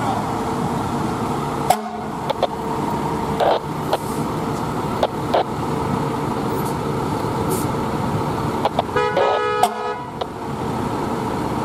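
Fire engine's diesel running as the rig pulls out, with a few sharp clicks. About nine seconds in comes one horn blast lasting about a second.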